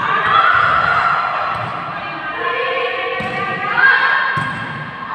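Players' and spectators' voices calling out in a sports hall, with two sharp volleyball hits about three and four and a half seconds in.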